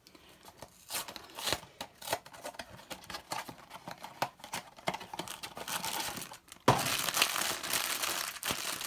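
Small cardboard blind box being opened by hand, with light scattered scrapes and clicks. About two-thirds of the way through, loud continuous crinkling starts suddenly as the black foil bag inside is handled and torn open.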